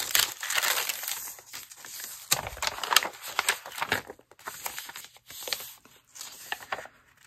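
Pages of an altered Little Golden Book junk journal being turned by hand: paper and translucent sheets rustling and crinkling, with small taps and clicks, busiest in the first half and quieter later.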